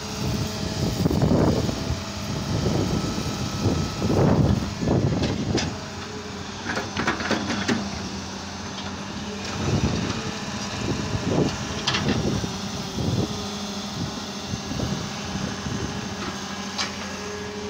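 Wheeled excavator's diesel engine running steadily, with repeated louder surges every second or two and a few sharp knocks as the bucket digs into and scoops soil.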